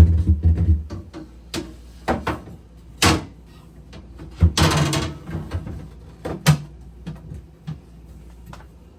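Refrigerator drawer being fitted and slid back into the fridge: a string of knocks and clicks, with a longer scraping slide about four and a half seconds in as it goes home.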